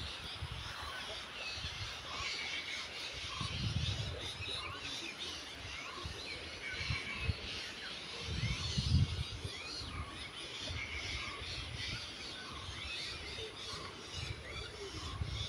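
Many small birds chirping and calling, with one short call repeating about every four seconds. A low rumble comes twice, about four seconds in and again near nine seconds.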